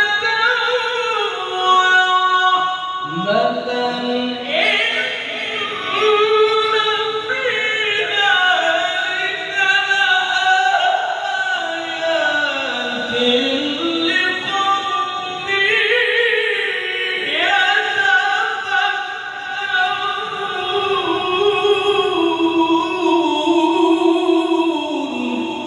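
A man reciting the Qur'an in the melodic tilawah style: long held notes with sweeping, ornamented glides up and down in pitch.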